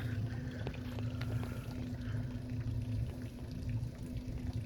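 Boat motor idling with a steady low hum, with water sloshing and splashing around the boat.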